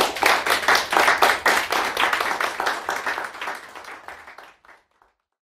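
Audience applauding, a dense run of claps that fades out near the end.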